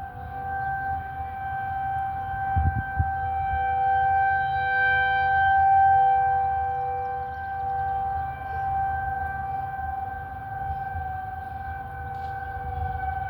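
Whelen Vortex R4 rotating electronic outdoor warning siren sounding a steady, unwavering chord, swelling to a peak about six seconds in and fading as its head turns. A low rumble sits beneath, and there are a couple of short thumps about three seconds in.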